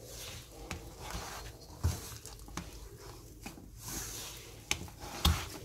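A hand mixing flour into a soft yeasted dough in a stainless steel bowl: irregular rubbing and squishing, with a few sharper knocks against the metal bowl.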